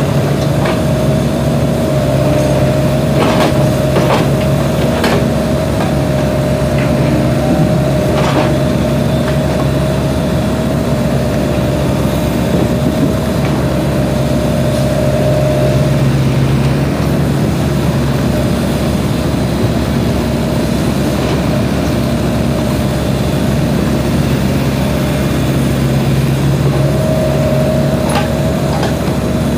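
Sany mini excavator's diesel engine running steadily as it digs, with a steady whine over it that drops out for about ten seconds past the middle and comes back near the end. A few sharp knocks sound in the first several seconds.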